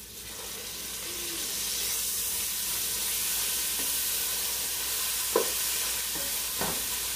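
Ginger-garlic paste sizzling in hot oil with browned onions in a pan. The frying hiss swells over the first two seconds, then holds steady, with a couple of light knocks of a stirring spoon against the pan near the end.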